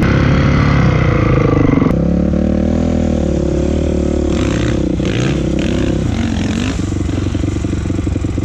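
Dirt bike engine revving on a steep hill climb, its pitch rising and falling as the throttle is worked. About two seconds in the sound changes abruptly, from the rider's own bike heard up close to a bike climbing the slope above. There are a few short rushes of noise in the middle.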